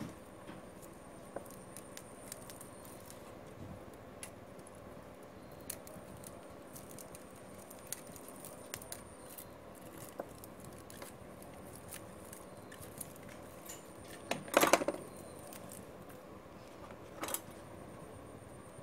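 Light clicks and rustling of a coaxial cable's foil shield and small metal hand tools being handled on a wooden workbench, with a louder clatter about fifteen seconds in and a smaller one a couple of seconds later, over a faint steady hum.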